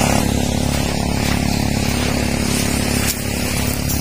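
A small engine running steadily, a continuous drone with a hiss over it, dipping briefly in loudness about three seconds in.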